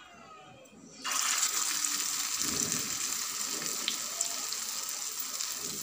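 Vada batter dropped into hot oil in a small steel kadai, setting off a sudden sizzle about a second in that then goes on steadily as the vada deep-fries.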